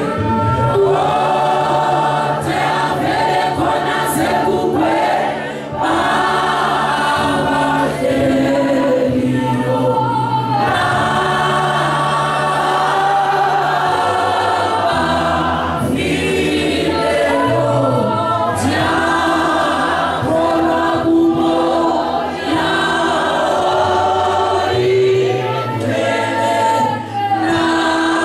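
A church congregation singing together.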